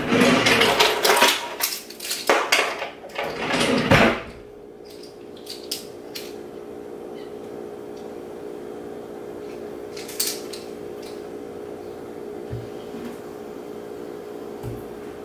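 Kitchen handling sounds, dishes and utensils knocking and shifting, for about the first four seconds, then a steady hum with a few light clicks.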